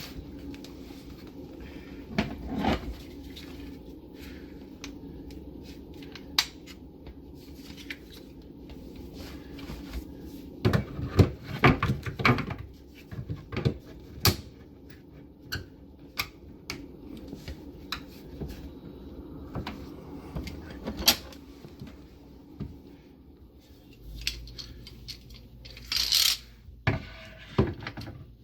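Tools, clamps and a lag bolt knocking and clicking against the wooden sink cabinet as the face plate is clamped into place. The knocks are irregular, with a cluster of louder ones about eleven seconds in and more near the end, over a low steady hum.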